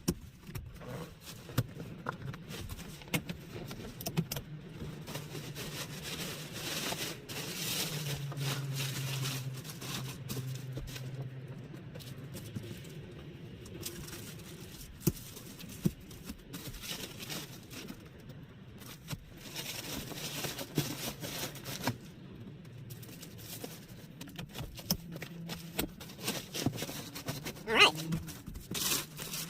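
Tools and fluid bottles being handled and packed into a vehicle: scattered clinks, knocks and scrapes over a low steady hum, with a short squeak near the end.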